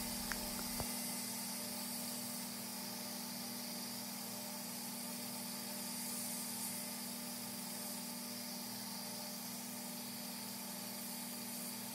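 Belt grinder running with a steady low hum while a hardened steel knife blade is ground on its abrasive belt over a large contact wheel, an even hiss of steel on the belt.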